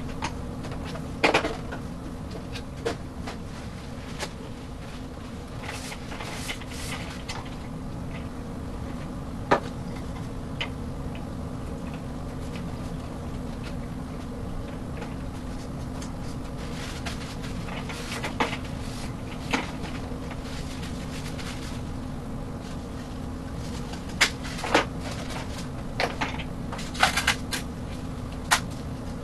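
Scattered clicks, taps and knocks of plastic and foam parts being handled while assembling a foam RC jet, over a steady low hum; the clicks come in a cluster near the end.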